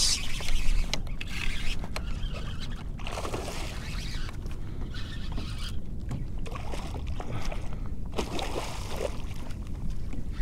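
A hooked redfish thrashing and splashing at the surface beside a kayak, in several bursts, over a steady low rumble of wind on the microphone.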